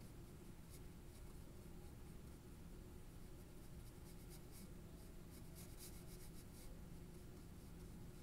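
Faint scratching of a colour pencil shading on drawing paper in quick short strokes, thickest about four to seven seconds in, over a low steady hum.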